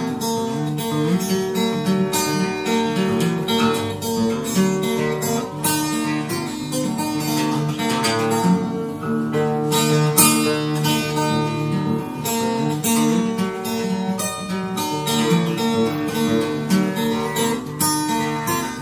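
Acoustic guitar played solo and without singing: a steady, unbroken run of picked and strummed notes.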